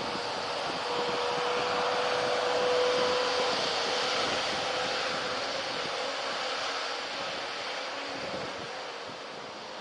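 Jet airliner engines passing: a broad rushing roar with a faint steady whine, loudest about three seconds in and then slowly fading.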